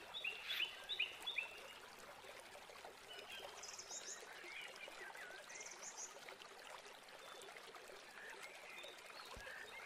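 Oil sizzling faintly in a nonstick frying pan as grated-potato pancakes fry, with a few faint high ticks in the first second and a half.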